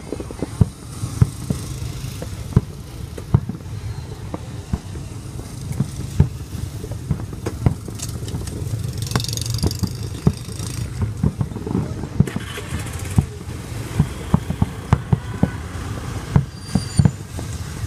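Fireworks going off in many sharp, irregular bangs over a steady low rumble.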